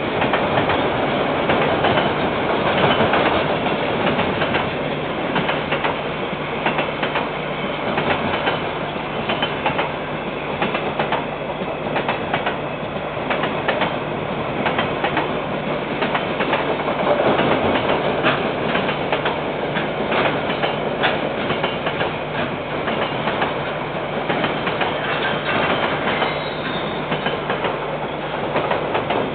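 KiwiRail container freight train rolling past, its wagon wheels clicking over the rail joints in a steady stream of clacks over a continuous rolling noise. It is picked up by a security camera's microphone, which sounds thin, with no high treble.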